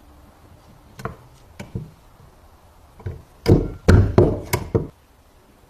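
A restored stapler being worked by hand, giving sharp clacks: a few lighter clicks, then a quick run of about six louder clacks near the end.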